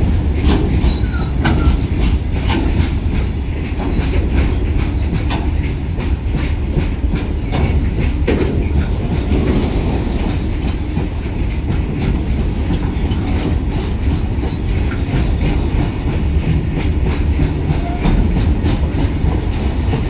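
A goods train of open-top steel freight wagons rolling past at close range. There is a steady heavy rumble, with repeated clacks of wheels over the rail joints and a few brief, faint wheel squeals.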